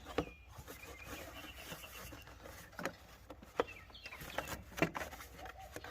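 Scattered light knocks and clicks of the intake hose and engine-bay parts being handled and pushed back into place, a few separate taps a second or so apart.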